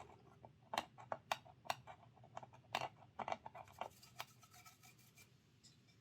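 Scalpel blade scraping excess white lining paint off a model locomotive body: faint, irregular short scratches that tail off after about four seconds.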